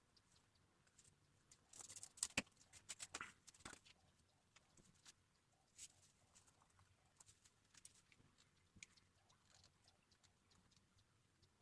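Light handling noises of cardboard craft work: scattered faint clicks and taps, with a short run of louder ones about two to four seconds in.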